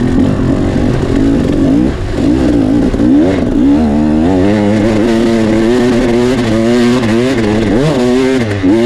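Dirt bike engine under a rider's throttle, revving up and down. Its pitch swings quickly and repeatedly, several rises and falls a second in the second half.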